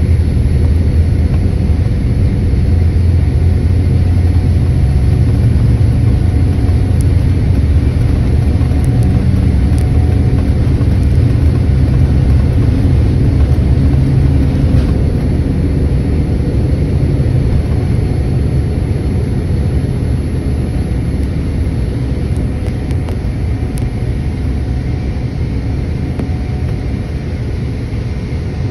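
Inside the cabin of a Boeing 787-9 on its takeoff roll: a loud, steady, deep rumble from the engines at takeoff power and the wheels on the runway, with a few faint clicks. The rumble eases gradually over the second half.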